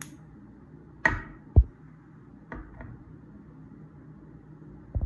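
Several dull knocks and bumps over a low steady hiss: two close together about a second in, the second the loudest, a lighter pair a little later, and one more near the end.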